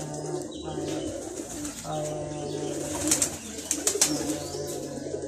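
A flock of domestic pigeons cooing in a loft, several long, low, overlapping coos at once. A few sharp clicks are heard about three and four seconds in.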